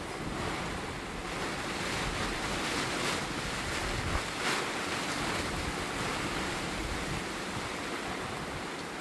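Storm-force wind blowing hard over rough water, a steady rushing noise with two louder surges about three and four and a half seconds in.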